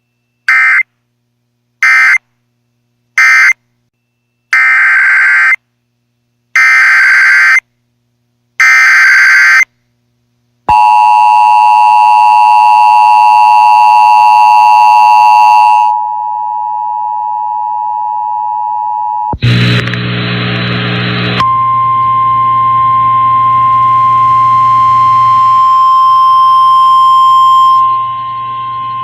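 Weather radio alert signalling: six short, harsh digital data bursts of SAME code, three short ones then three longer ones, followed by a long steady alert tone that drops to a simpler tone partway. After that come a brief burst of static-like noise and a single steady alarm tone just above 1 kHz with hiss under it.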